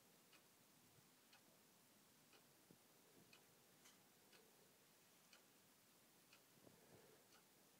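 Faint ticking of a clock, one tick a second, with a few fainter irregular clicks in between.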